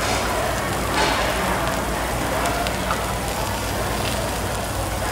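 Pork belly, sliced meat and shrimp sizzling on a tabletop restaurant grill plate: a steady hiss with a few pops of fat here and there.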